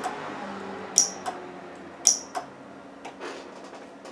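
Small open-frame solenoid, the turret's trigger coil, being test-fired: two sharp clicks about a second apart, each followed a moment later by a lighter click.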